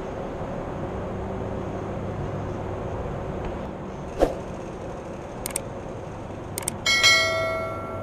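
Subscribe-button overlay sound effect near the end: a few quick clicks, then a bright bell chime that rings and fades. Under it a steady hum, with one sharp knock about four seconds in.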